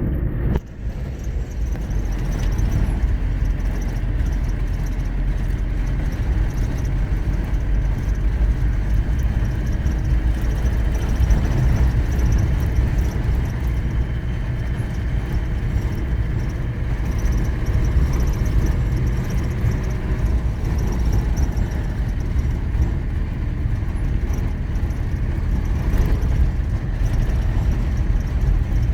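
Car driving on an unpaved dirt road: steady low rumble of engine and tyres on the dirt surface.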